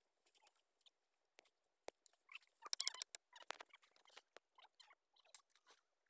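Faint rustling of leafy branches with twigs crackling and snapping as they are pulled and broken by hand: scattered clicks, one sharp snap just before two seconds in, and a quick run of crackles about three seconds in.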